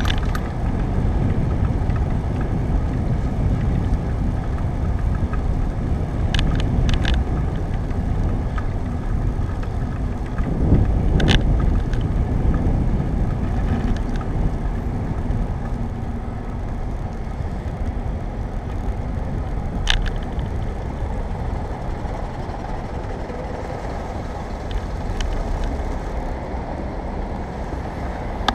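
Steady rumble of wind and tyre-on-pavement noise on a bicycle-mounted camera's microphone while riding along a city bike path, with road traffic behind it. The noise swells about eleven seconds in, and a few sharp clicks, the bike rattling over bumps, break through.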